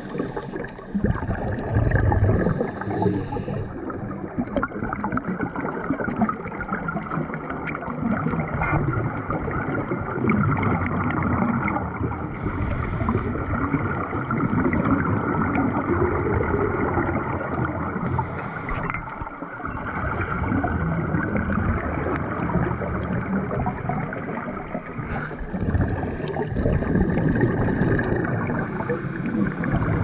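Scuba divers' breathing and regulator bubbles heard underwater: a constant muffled rush and bubbling, with a brief higher hiss four times.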